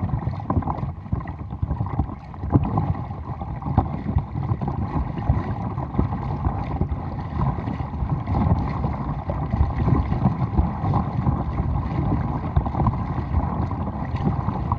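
Kayak paddle blade splashing into the water on alternating strokes, with water rushing along the hull of a folding kayak. Wind buffets the microphone as a low rumble throughout.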